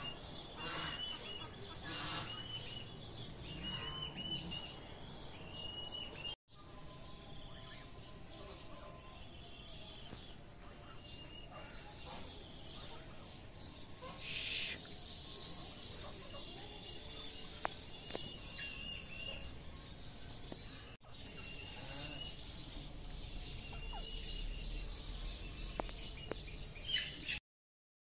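Birds calling: short high chirps repeating every second or two over a soft background, breaking off sharply twice and cutting off suddenly near the end.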